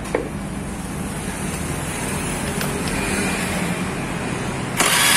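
Carburettor Honda Scoopy's single-cylinder engine and CVT running on the stand just after the CVT was reassembled around a fix for the worn roller-housing bushing, now running smoothly without the earlier rough noise. Near the end the sound suddenly gets much louder and hissier.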